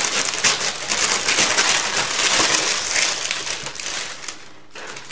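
Crinkling and rustling of packaging as a small fabric gift bag is pulled out of an advent calendar box, dying away about four seconds in.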